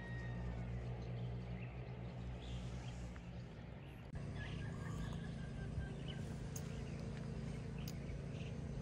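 Outdoor ambience: a steady low hum with small bird chirps now and then. The background changes abruptly about four seconds in, and a couple of faint clicks come near the end.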